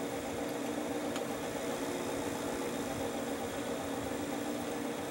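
1968 Shibaden SV-700 reel-to-reel video tape recorder running in playback, its motor and spinning scanner giving a steady hum over a hiss.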